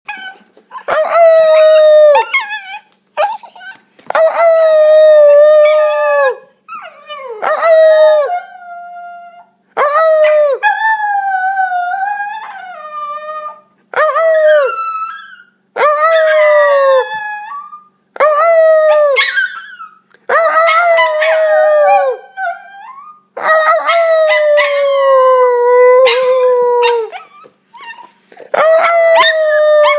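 Italian Greyhound puppy howling: a run of about eleven howls, each one to three seconds long with short breaks between, the pitch wavering and dropping away at the end of each.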